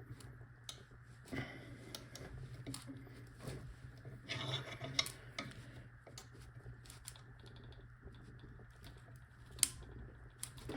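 Bench vise being tightened on a padlock and steel bar: scattered small metallic clicks and short stretches of scraping from the vise screw and handle, with one sharp click near the end, as pressure builds to push out the padlock's press-fitted rear end.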